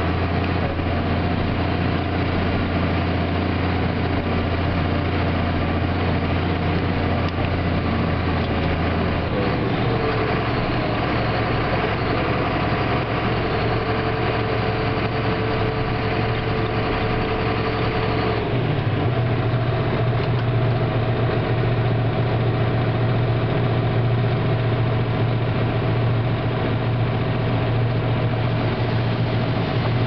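John Deere combine with a Drago cornhead harvesting corn: its engine and threshing machinery run steadily. The low hum steps to a different pitch twice, about a third of the way in and again a little past halfway.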